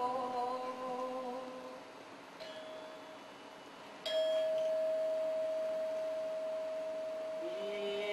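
Held chanted notes die away in the first two seconds. A soft ringing tone follows, then about four seconds in a single bell-like metallic tone is struck and rings on steadily. Near the end a low chanting voice takes up a new held note.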